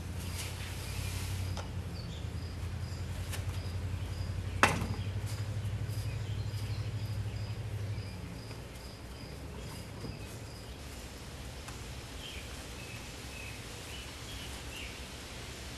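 Outdoor ambience: a low steady hum that stops about eight seconds in, under a high chirp repeating about twice a second. A single sharp click comes about five seconds in, and a few short chirps come near the end.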